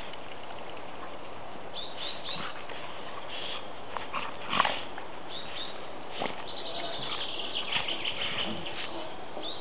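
Two golden retrievers play-fighting: scattered short dog noises, the loudest about four and a half seconds in and more of them near the end, over a steady hiss.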